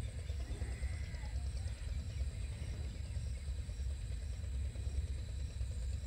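Steady low outdoor rumble, with a faint short bird call about a second in.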